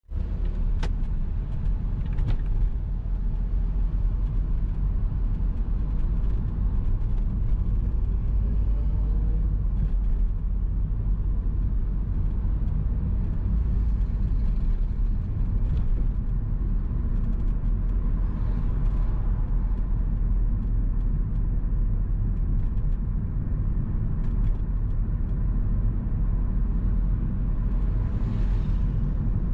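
A car driving on a busy city road: a steady low rumble of engine and road noise, with the engine pitch rising briefly as it picks up speed about a third of the way in. Passing traffic swells up and fades twice, about two-thirds in and near the end.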